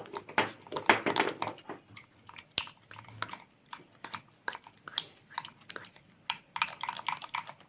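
Soft pulp of a boiled lemon being pressed and scraped through a tea strainer over a cup: quick, irregular scraping and clicking.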